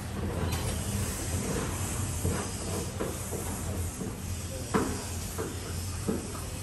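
Scouring sponge rubbed over glazed ceramic wall tiles in repeated short strokes, wiping off grout residue, over a steady low hum.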